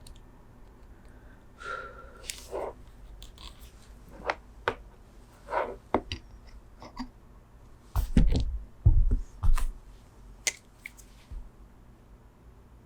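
Hands working with small tools and parts on a desk while hand-wiring a keyboard: scattered clicks, taps and short rustles, with a cluster of heavier knocks about eight seconds in.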